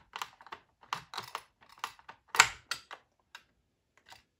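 Plastic clicking and clacking as the side cover of a cheap gasoline chainsaw is worked loose by hand, its plastic tabs holding on. An irregular series of clicks, the loudest about two and a half seconds in.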